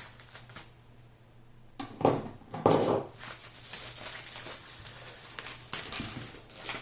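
Handling noise from heavy powder-coated metal kit plates being unpacked and looked over: light knocks and clicks, with two louder scraping, rustling bursts about two and three seconds in.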